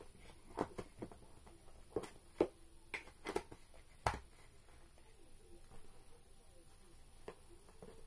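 Small objects being handled: a string of light clicks, taps and knocks during the first four seconds or so, the sharpest about four seconds in, then only faint handling and one more click near the end.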